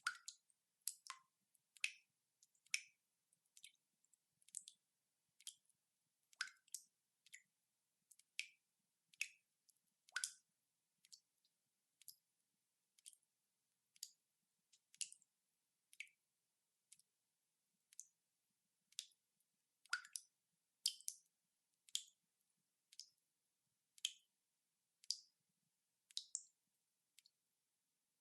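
Water dripping slowly: single drops landing one at a time, each a short, sharp plink, roughly one a second and sometimes two close together.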